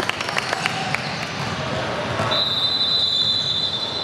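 Basketball game in a gym: a few sharp knocks of the ball bouncing on the court, then a referee's whistle blown in one long steady high blast from about halfway in.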